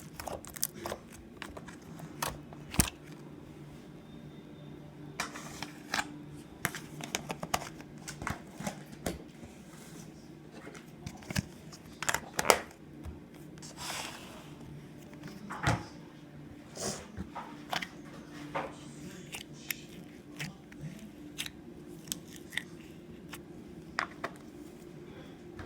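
Slime being squeezed and poked by hand, giving irregular sticky clicks and pops, a few to several a second, over a steady low hum.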